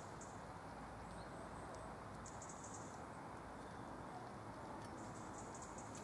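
Small tits giving high, thin calls in quick series, once about two seconds in and again near the end, over a faint steady background hum.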